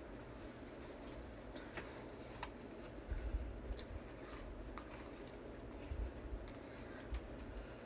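Faint eating sounds of someone chewing spaghetti, with a few light clicks and low bumps about three seconds in, around six seconds and near the end, over a steady low room hum.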